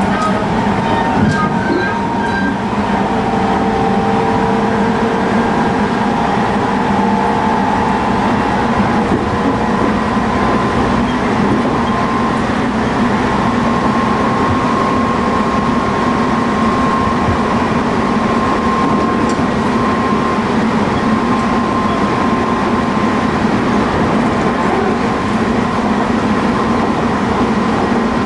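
Tobu 20050 series GTO-inverter electric train running steadily between stations, heard from inside the motor car. The wheels on the rails make even rolling noise, and a thin steady whine runs under it. A few shifting tones in the first seconds settle into the whine.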